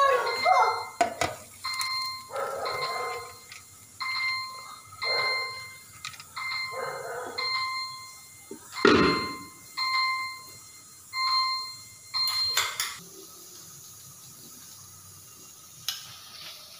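An electronic beeper sounding a short steady tone about once a second, with a dog barking in between; both stop about thirteen seconds in.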